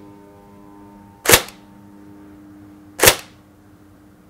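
Tokyo Marui 417 electric blowback (Recoil Shock) airsoft rifle firing single shots into a chronograph: two sharp shots about two seconds apart.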